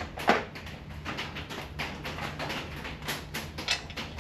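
Metal hand tools clinking and knocking as sockets are tried on the belt-guard bolts: irregular sharp clicks, the loudest about a third of a second in, over a steady low hum.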